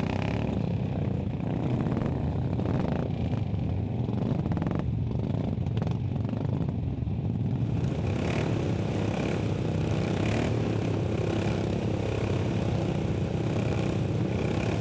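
Racing lawn mower engines running, with clattering and scraping, growing fuller from about eight seconds in.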